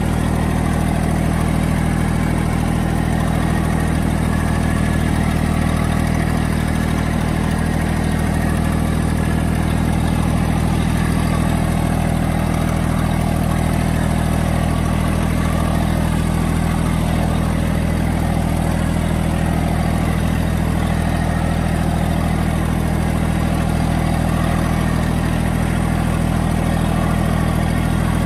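Massey Ferguson GC1723E compact tractor's three-cylinder diesel engine running at a steady speed as the tractor drives with a loaded front loader, heard from the driver's seat.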